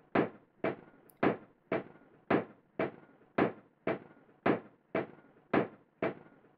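Recorded percussive knocks playing back in a steady rhythm, about two sharp hits a second, each dying away quickly. A multiband downward expander is pulling down the crackly background noise between the hits.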